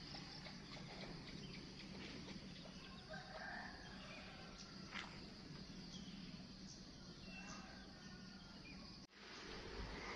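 Faint chicken calls over a steady low background hum, the sound cutting out for a moment near the end.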